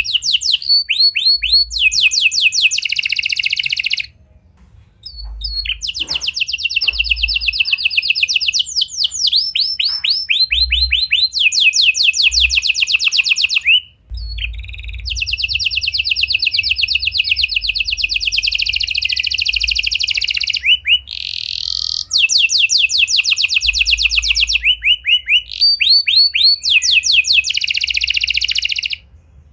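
Red-factor domestic canary singing a long, fast song of rapidly repeated trilled notes in rolling phrases. There is a short break about four seconds in and a few brief pauses later.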